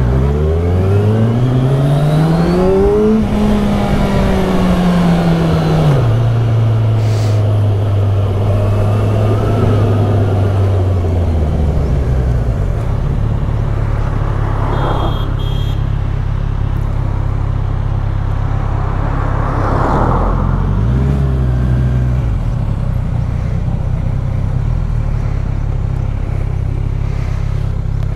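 Kawasaki Z1000SX (Ninja 1000) inline-four engine, heard from the rider's seat: it revs up over the first three seconds, eases off, then runs steadily at low road speed, with a brief rise in revs about twenty seconds in.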